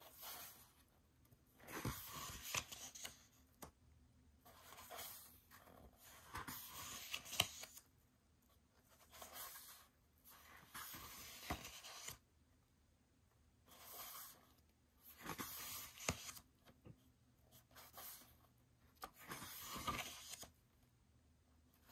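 Pages of an album photobook being turned by hand, the paper rustling and swishing with each turn, a page every couple of seconds.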